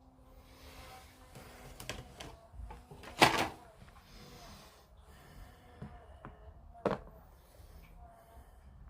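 Small plastic model parts and tools being handled on a work surface: scattered light clicks and taps, with a sharper click about three seconds in and another near the end.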